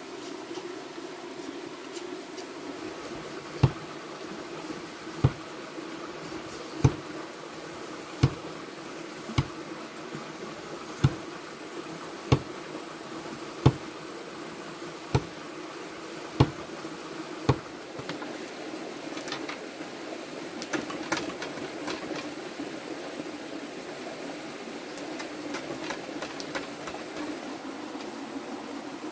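A knife chopping into a bamboo pole to split it into strips: about eleven sharp knocks, a little over a second apart. After that come softer clicks and rustles of bamboo strips being handled, over a steady background drone.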